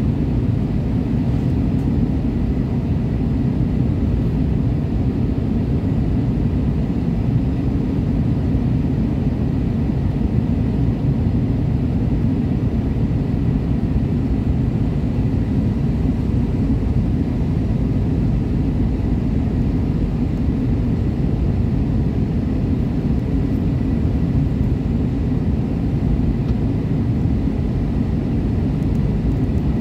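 Airliner cabin noise during the final approach: a steady low roar of the jet engines and rushing air, heard from inside the cabin, with a faint steady high whine.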